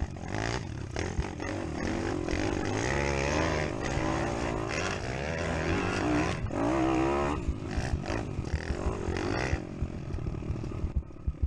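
Pitbike's small single-cylinder four-stroke engine under race throttle, revving up and down as the rider accelerates and eases off, with a strong rising rev about six seconds in. Sharp knocks near the end.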